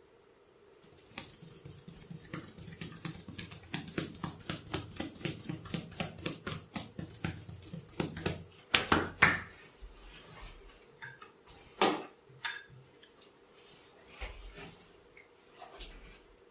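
Rapid percussive tapping of a head and shoulder massage, about five sharp taps a second. Near the middle it breaks into a few louder, scattered strikes.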